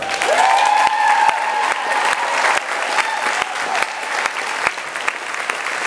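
Audience applauding with steady, dense hand-clapping. In the first couple of seconds one person lets out a long whoop that rises, then holds.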